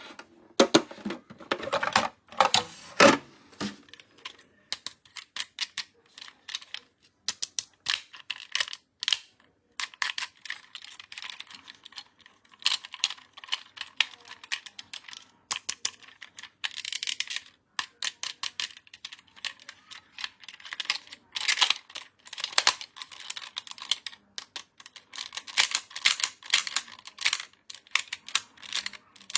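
Hands handling a toy and its packaging: rapid, irregular clicks and taps, mixed with short bursts of crinkly rustling.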